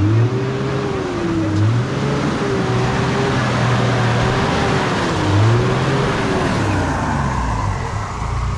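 A 4x4's engine revs up and down several times under load over a steady wash of tyre and mud noise as it works through a muddy off-road track.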